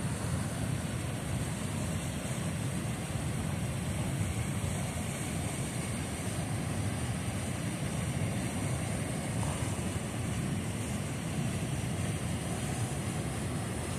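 Steady rush of the swift river water, an even low noise that does not change.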